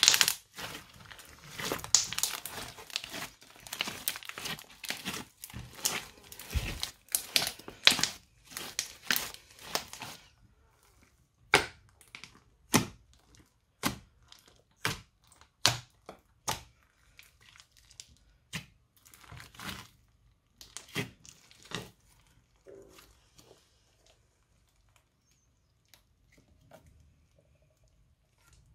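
Crunchy slime squeezed and kneaded by hand, crackling and popping densely. About ten seconds in it thins to single sharp pops and clicks as fingers poke into the slime, and these grow sparse near the end.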